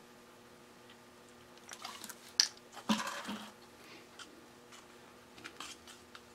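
Short clicks and knocks of a plastic water bottle and cup being handled on a workbench, the loudest a sharp knock about two and a half seconds in, followed by soft scraping as a small tool stirs unsanded wall grout and water into a paste in a small plastic cup.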